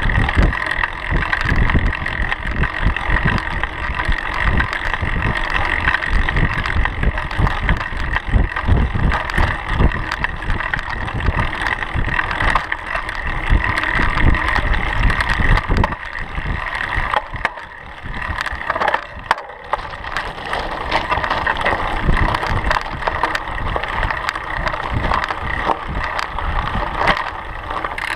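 Mountain bike ridden over a dirt trail: continuous tyre rumble and rattling from the bike over bumps, with wind buffeting the bike-mounted microphone.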